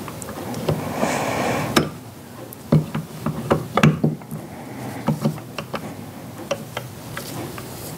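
Irregular clicks and knocks as a power steering pump is turned and worked onto a rebuilt Cummins vacuum pump, its loose drive gear rotated until the drive dogs line up, after a brief rustle of gloved hands handling the parts.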